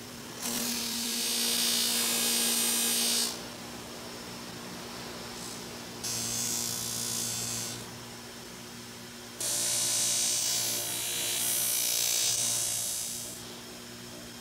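Bench grinder running steadily with a stitched cloth buffing wheel, small metal lock parts held against it: a hiss rises three times for a few seconds each as the metal meets the wheel, and drops back to the motor's hum in between.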